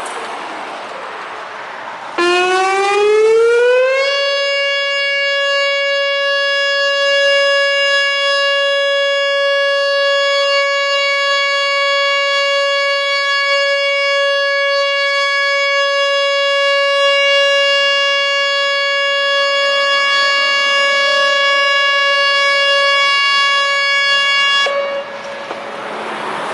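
Whelen WPS-2910 electronic outdoor warning siren sounding its steady Alert tone. About two seconds in it comes on, glides up in pitch for about two seconds, then holds one loud steady tone for about twenty seconds before cutting off near the end.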